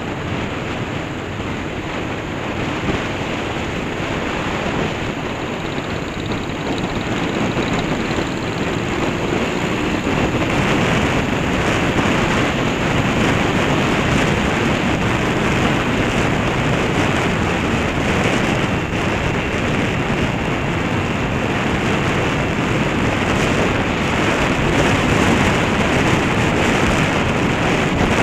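Wind rushing over the microphone of a motorcycle-mounted camera on a moving Honda CB500, with the bike's engine and road noise underneath. The rush grows louder about ten seconds in.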